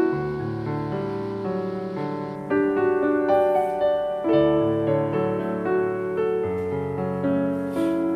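Background piano music: a slow melody over sustained chords, with new notes struck every second or so.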